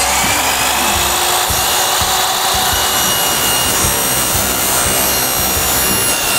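Sliding miter saw running at full speed, its blade cutting an angled end on a white vinyl (PVC) stair rail. A steady high whine sits over the hiss of the cut.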